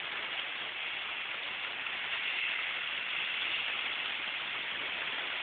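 Heavy rain pouring down steadily onto a flooded street and sidewalk, an even hiss of falling water.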